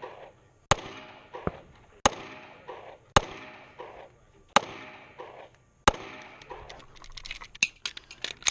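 Five semi-automatic pistol shots fired one at a time, about a second and a quarter apart, each trailing off in a ringing echo. Near the end come a quick run of small clicks and knocks as the pistol is handled.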